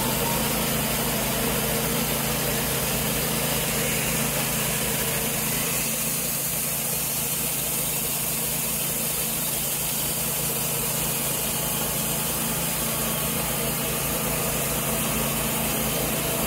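Portable band sawmill running steadily, its engine note unchanging as the blade cuts lengthwise through a log.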